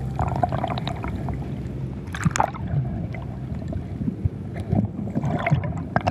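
Bubbles and churned water around a freediver, heard underwater, with irregular crackles and a sharper burst about two seconds in.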